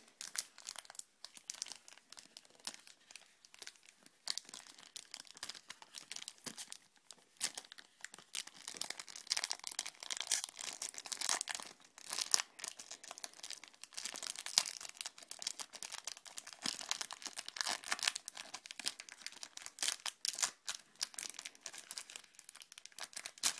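Foil wrapper of a Gym Heroes Pokémon booster pack crinkling and tearing as it is worked open by hand, in a long run of irregular crackles.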